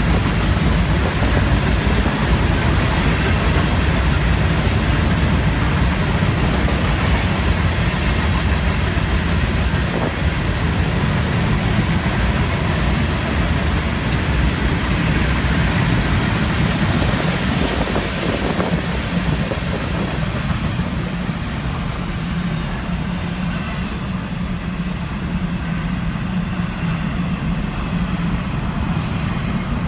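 Florida East Coast Railway freight train rolling past: a steady rumble of steel wheels on rail from loaded rock hopper cars, with double-stack container cars coming by near the end.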